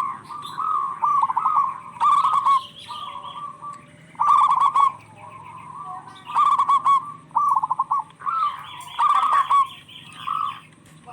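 Zebra doves (perkutut) cooing back and forth. Short, rapid, stuttering coo phrases come about every one to two seconds, some overlapping as the birds answer each other.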